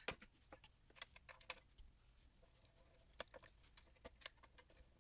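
Faint, irregular light clicks and taps of small hard parts being handled, about a dozen scattered through, the sharpest right at the start and about a second in.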